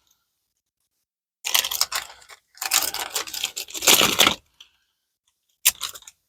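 Plastic packaging of a set of keyhole router bits being handled and torn open: two crinkly, tearing spells of a second or two each, then a short click near the end.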